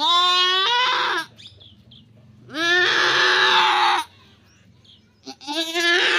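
Goat bleating loudly three times, each call long and drawn out, the middle one hoarser.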